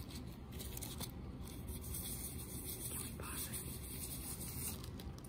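Faint rubbing of paper wiped across an inked acrylic drypoint plate by a gloved hand, with light scratchy ticks: paper wiping, lifting the surface ink while leaving it in the scratched lines.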